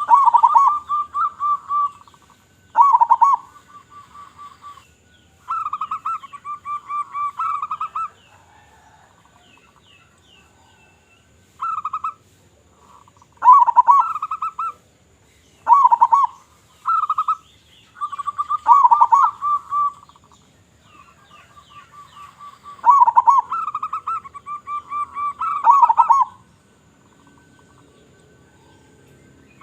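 Zebra dove (local perkutut) cooing: a series of phrases, each a quick run of short notes with a few louder, lower notes, repeated with pauses of a few seconds between them.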